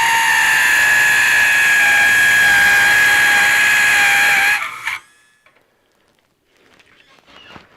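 Small high-speed power tool running steadily as it cuts a groove deeper into a rusted screw head that has nothing left to grip. It gives a high whine that cuts off about five seconds in, followed by a few faint clicks.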